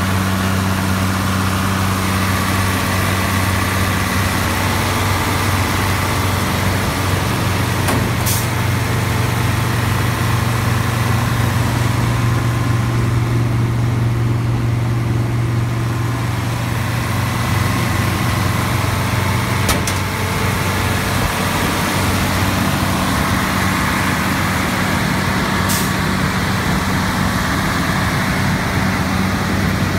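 Combine harvester's diesel engine running steadily, a low hum that rises slightly in pitch for about twelve seconds in the middle and settles back; a few faint clicks.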